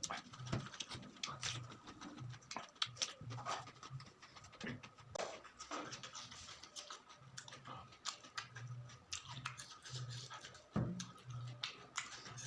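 Close-miked chewing and eating: wet mouth smacks and clicks again and again, with heavy breathing through the nose pulsing underneath.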